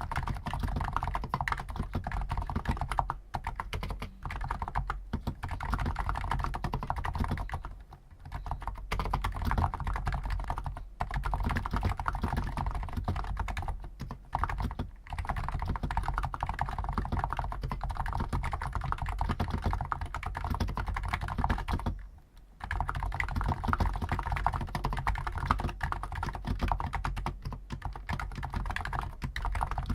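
Fast, continuous typing on a stock Hansung GTune CHL5 XRGB electro-capacitive keyboard with 50 g switches: dense keystrokes broken by short pauses, the longest about 22 seconds in.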